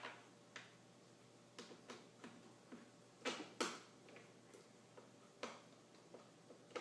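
Faint, irregular clicks and ticks of a Phillips screwdriver driving a screw into the plastic handle joint of a vacuum cleaner, with a louder pair of clicks about three and a half seconds in.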